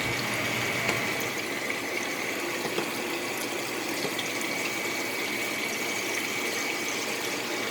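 Kitchen exhaust fan running steadily, a whooshing rush with a thin high whine, which the cook calls a "loud ass" fan.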